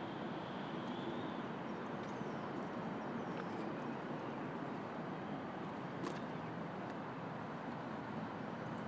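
Steady hum of city street traffic, with a faint click about six seconds in.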